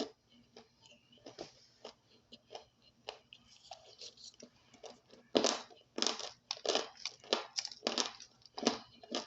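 Crunchy chewing of dry starch chunks: faint scattered crackles at first, then loud, dense crunches from about halfway, roughly two a second.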